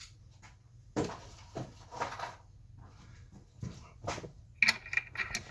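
Metal tools and parts being handled: a knock about a second in, then scattered knocks and clinks, with a quicker run of ringing clinks near the end.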